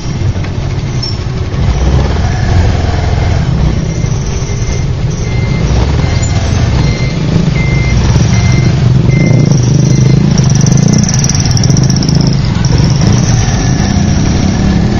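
Motorbike riding slowly in congested street traffic: a steady low engine rumble under general traffic noise. A high squeal runs over it, strongest past the middle, and a string of about five short, evenly spaced high beeps sounds about a third of the way in.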